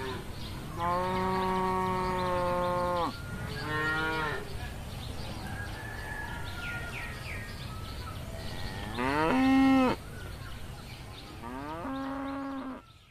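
Cattle mooing: about four long, drawn-out moos over a steady background hiss. The first lasts about two seconds, and the loudest, about nine seconds in, rises in pitch and then holds.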